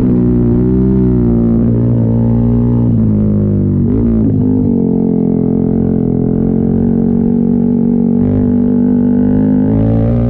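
Yamaha MT-15 motorcycle engine running through an Austin Racing aftermarket exhaust: a loud, deep, steady drone at low revs, slightly uneven at first, with a short throttle blip about four seconds in before it settles back to a steady idle.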